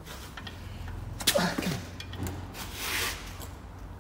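Breaker bar turning a Mini Cooper's crankshaft pulley bolt through its final 90 degrees of angle-tightening after a 50 Nm starting torque, so the bolt is under heavy load. There is a sharp crack about a second in, a short falling creak, then a rasping rub near three seconds.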